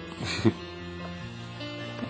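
A baby's hiccup, one short sudden sound about half a second in, over background music with acoustic guitar.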